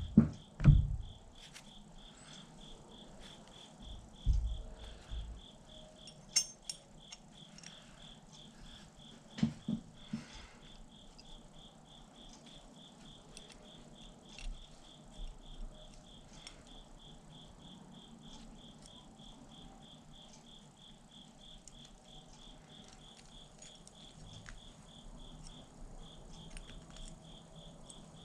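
A cricket chirping steadily, about four chirps a second, with a short pause near the end. A couple of dull thumps in the first few seconds and scattered light clicks come from the ratchet parts being handled on the table.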